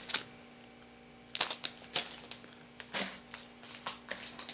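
Plastic packs of soft-plastic fishing baits crinkling and clicking as they are handled and set down on a table, in a run of short, separate crackles that start about a second and a half in.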